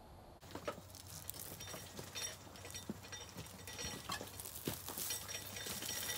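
Faint, irregular light clinks and knocks, a few a second and a little louder toward the end, as of things being moved and handled in a shed.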